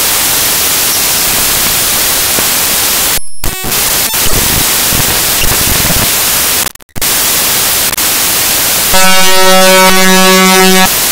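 Loud steady static hiss, typical of an audio feed fault, that cuts out briefly twice. About two seconds before the end a loud, harsh buzzing tone comes in and then cuts off.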